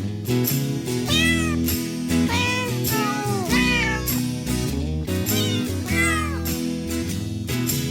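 Background music with a steady beat, with a cat meowing several times over it, each meow rising then falling in pitch.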